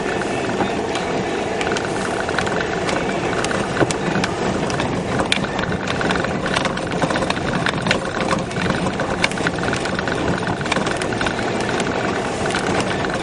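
Peugeot car driving slowly over a rough, puddled dirt road, heard from inside the cabin: a steady engine and road noise with frequent irregular clicks and knocks from the car jolting over the potholes.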